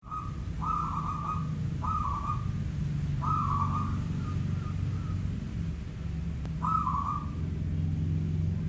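Zebra dove (perkutut) cooing: a string of short, burry notes, then a pause of about two seconds before one more. A steady low hum runs underneath.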